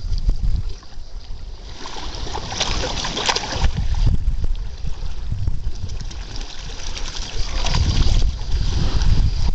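A dog wading through shallow water, splashing in two spells, about two seconds in and again near the end, over running water and a low rumble of wind on the microphone.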